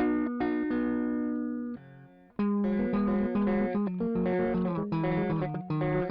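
Electric guitar through a Caline 'British Sound' overdrive pedal, played back from a looper. Ringing chords fade, there is a brief gap about two seconds in, then a busier run of quick picked notes over lower notes.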